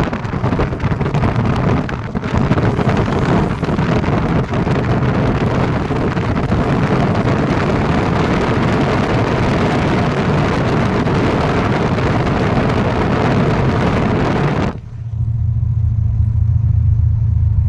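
Loud rubbing and scraping on the phone's microphone, handling noise that buries everything else. It stops about fifteen seconds in, leaving a low steady hum.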